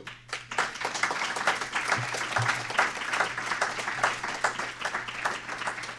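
Audience applause: many hands clapping in a dense, irregular patter that starts a moment in and keeps an even level.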